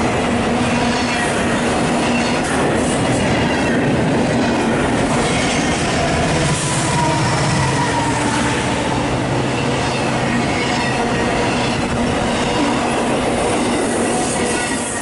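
Union Pacific double-stack intermodal freight train passing close by: a loud, steady rumble and rush of steel wheels on rail as the container and trailer cars roll past.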